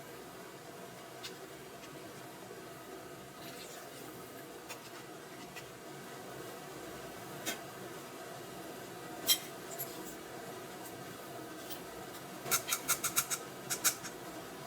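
Scattered light clicks and taps over a steady low background hiss, with a quick run of about eight clicks near the end.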